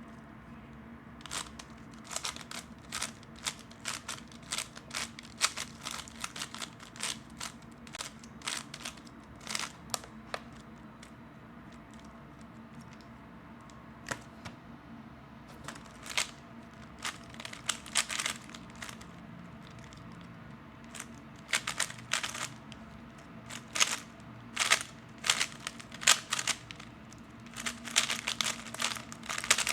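Rapid clicking and clacking of a 3x3 speedcube's plastic layers being turned fast during timed solves, in quick flurries with a sparser stretch in the middle.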